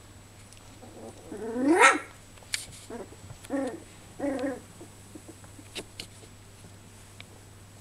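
Young Goldendoodle puppies vocalising: one loud yelp that rises in pitch about a second and a half in, then two short barks about two and a half seconds later, spaced under a second apart.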